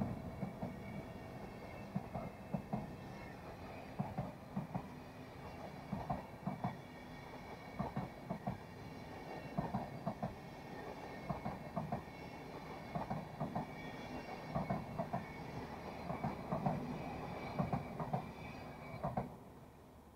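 Passing train of Swiss SBB passenger coaches, wheels clicking over rail joints in quick groups of two to four as each bogie goes by, over a steady rolling rumble and a faint high whine. The clicking and rumble stop abruptly as the last coach passes, near the end.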